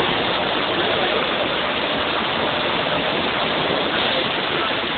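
Steady, even rushing noise, like heavy running water, with no distinct bangs.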